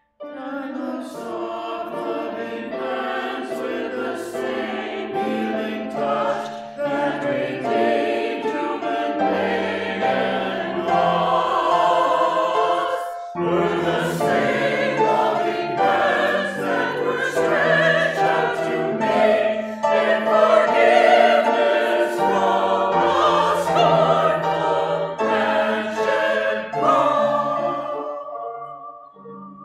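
A small choir singing a slow sacred song with piano accompaniment, pausing briefly about thirteen seconds in and dying away near the end.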